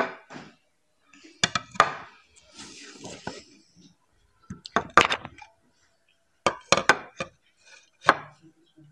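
Plates of potato chips being lifted and set down on a tabletop: a series of sharp knocks and clinks, with a rustle of chips shifting about two to three seconds in.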